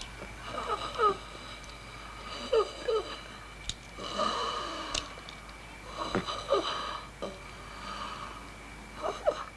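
Labored, wheezing breaths of an unconscious injured person: short squeaky falling wheezes, mostly in pairs, about every two to three seconds. A few soft clicks fall between them.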